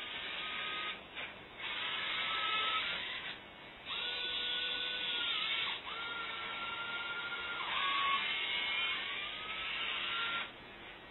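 Small servo motors in the joints of a modular robot whining as the modules turn, in runs of a few seconds with brief pauses between them, the pitch shifting as each movement starts and stops.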